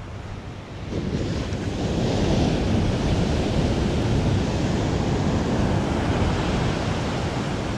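Surf breaking and washing up a sandy beach, with wind buffeting the microphone. The rush swells about a second in and then holds steady.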